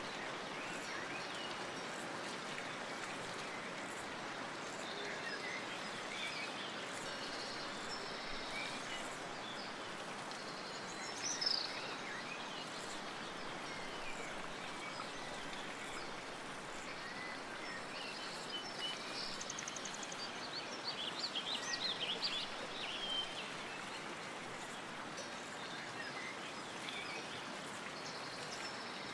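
Steady wind with birds chirping over it: a short call about eleven seconds in and a flurry of chirps around twenty to twenty-three seconds in.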